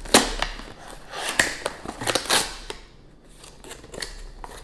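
Cardboard shipping box being pulled and torn open by hand: a series of sharp rips and crackles, the loudest right at the start and more around one and two seconds in, easing off near three seconds.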